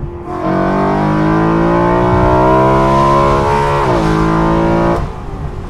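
BMW E93 M3's tuned 4.0-litre V8 with an aftermarket exhaust at full throttle in second gear, heard from the open cabin. The engine note climbs steadily, drops sharply at a quick dual-clutch upshift about four seconds in, then falls away as the throttle closes about a second later.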